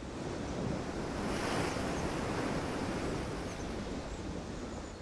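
Ocean waves and wind: a steady rushing noise that swells about a second and a half in, then slowly fades away near the end.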